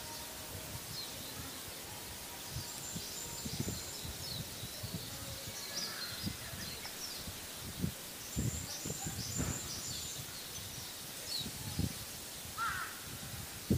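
Small birds chirping and calling on and off over a low outdoor background, with irregular low thumps on the microphone.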